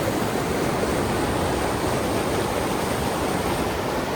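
Steady rush of fast, ice-cold meltwater in the river below Takakkaw Falls, an even unbroken roar of moving water.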